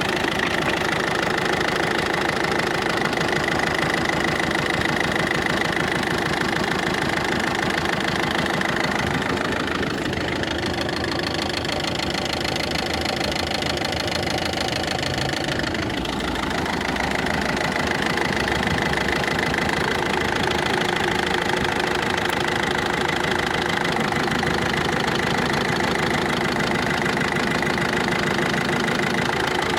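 Ford Focus II 1.6 diesel engine idling with a distinct ticking knock from the top of the engine, which the owner suspects comes from a pulley or the belt tensioner roller.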